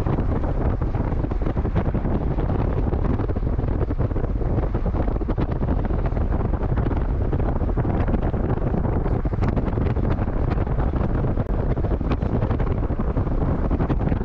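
Steady wind buffeting the microphone with road noise from a moving car, a constant low rumble throughout.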